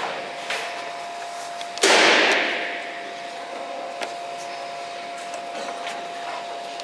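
Two-head laser cutting machine with a steady whine, a few light clicks, and a sudden hiss of air about two seconds in that fades over about a second.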